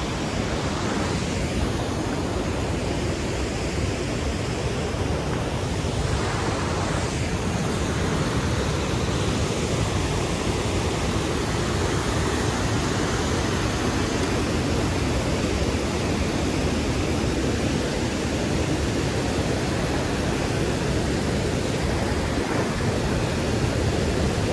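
Fast-flowing mountain stream rushing steadily.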